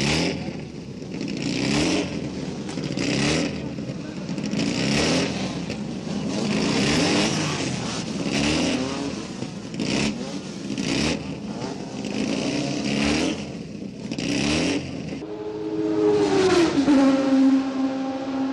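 1970s Formula One car engines at high revs, cars passing one after another, each engine note rising and then falling away. Near the end one engine holds a steady note, then its pitch drops and settles lower.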